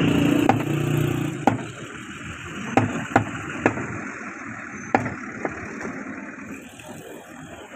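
Sharp single knocks of a butcher's cleaver striking a wooden log chopping block while beef is cut, about eight of them at uneven intervals. A low steady hum sits under them for the first second and a half and then fades.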